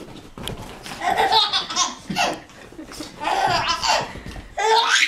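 A baby laughing hard in several bursts.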